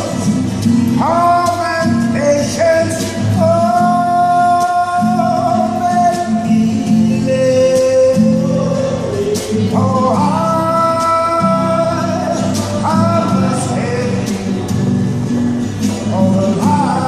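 A man singing in long held notes over a strummed guitar.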